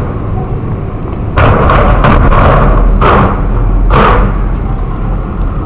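Loose steel plates covering a road-crossing drain trench banging under the wheels of passing motorbikes and a truck: several loud bangs over a steady traffic rumble. The plates rattle and bang because the trench was carelessly backfilled and covered.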